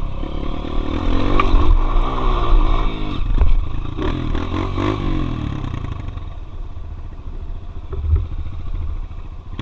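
Single-cylinder four-stroke trail motorcycle engine under way, its pitch rising and falling with the throttle during the first half, then running lower and quieter from about six seconds in.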